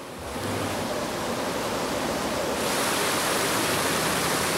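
Creek water rushing over rocks in a steady, even rush that fades in over the first second and grows brighter and hissier about two and a half seconds in.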